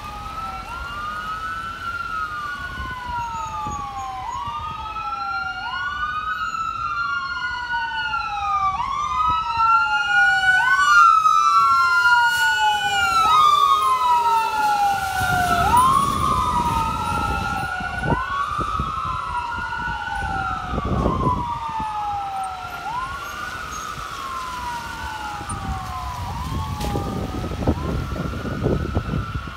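Fire engine siren wailing, rising and falling about every two seconds in overlapping sweeps. It grows louder as the truck approaches, and the engine and tyres rumble as it passes about halfway through.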